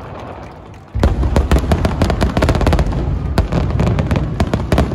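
Fireworks display: a fading rumble, then a loud burst about a second in, followed by dense, irregular crackling of many small pops over a deep rumble.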